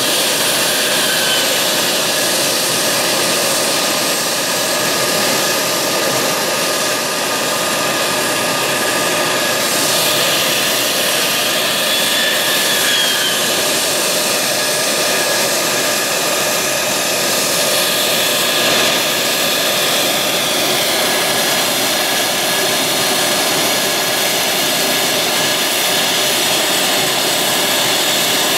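Military jet engines running at ground idle and taxi power: a loud, steady rush of noise with high whining tones on top.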